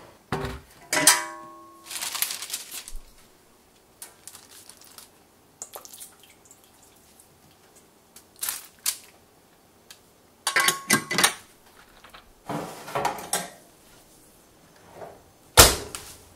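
A metal oven baking tray being handled: it clangs and rings briefly about a second in, baking paper rustles as it is laid on, and there are scattered clatters, with one loud knock near the end.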